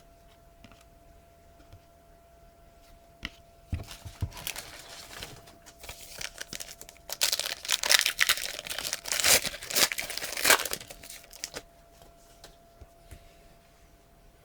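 A trading-card pack's wrapper being torn open and crinkled, starting with a few light handling clicks, then a long stretch of loud tearing and crinkling that dies away a few seconds before the end.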